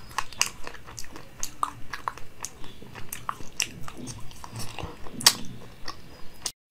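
Close-miked crunching and chewing as a person bites into a frosted frozen dessert bar on a stick, a quick run of sharp crackly bites that cuts off suddenly near the end.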